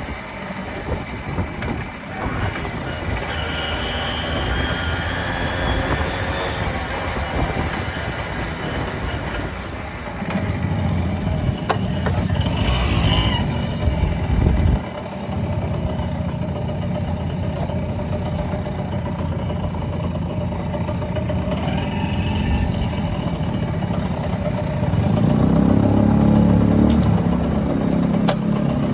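Yamaha YB-1 small motorcycle engine running while under way, with wind and road noise; the engine grows louder about ten seconds in and again near the end as it pulls harder.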